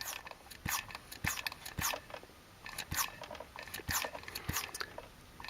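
Hand vacuum pump being pumped with repeated short click-and-hiss strokes, roughly two a second, drawing vacuum on a line of a Mercedes W202 climate-control vacuum system. The vacuum builds slowly because the line feeds two actuator pods.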